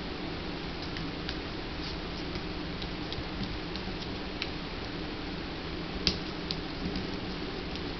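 Scattered light clicks of a puppy's and a cat's claws on a tile floor, irregular and soft, the sharpest one about six seconds in, over a steady low room hum.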